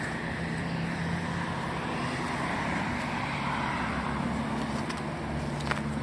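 Road traffic: cars driving past, a steady engine hum with tyre noise that swells and fades as a car goes by in the middle. A couple of short clicks near the end.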